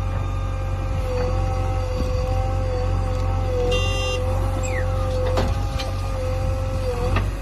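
JCB 3DX backhoe loader's diesel engine running steadily under load, with a steady hydraulic whine that dips slightly in pitch as the backhoe arm digs, swings and dumps soil. Two sharp knocks come about halfway through and near the end.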